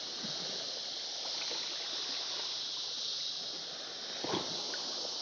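Steady high-pitched hiss of outdoor background noise, with one short low sound about four seconds in.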